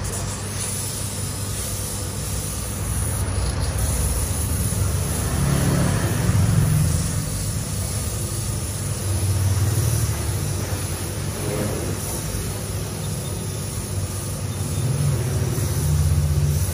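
Cue lathe motor running with a steady low hum that swells louder a few times.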